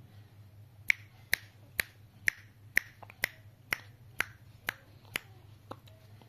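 A run of about eleven short, sharp clicks, evenly spaced about twice a second, starting about a second in and growing weaker near the end.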